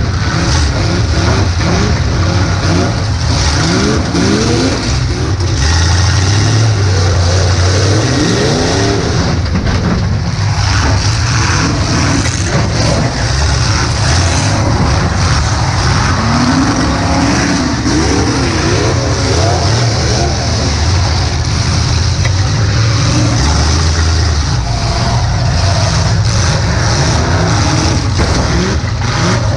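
Demolition derby car's engine running hard and revving up and down repeatedly, heard from inside the car's cabin, with many short knocks and rattles mixed in.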